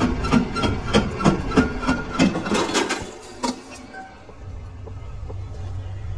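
Metal lathe turning a steel workpiece under a cutting tool, with sharp metallic knocks about three times a second over the machine's running rumble. After about three seconds the knocking stops and only a quieter, steady low hum of the lathe remains.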